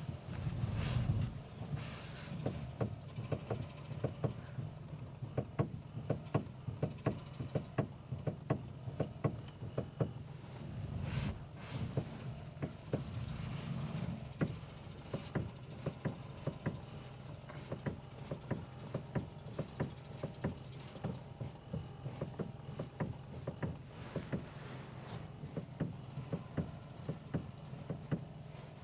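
Car steering rack knocking: irregular sharp knocks, at times one or two a second, over a steady low hum. The knock is the fault the owner attributes to the steering rack.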